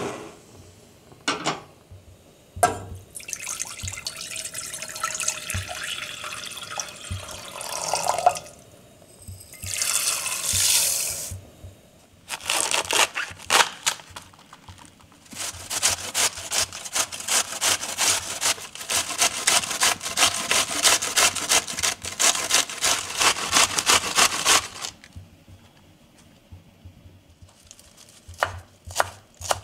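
Kitchen preparation sounds in turn: a few sharp clicks, water running and pouring, then a knife cutting a cabbage on a wooden board. Next comes a long run of quick, even scraping strokes of cabbage being grated on a metal box grater, and near the end a knife chopping parsley on the wooden board.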